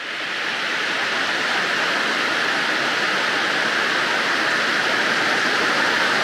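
Steady heavy rain, a dense even hiss that fades in over the first second and then holds.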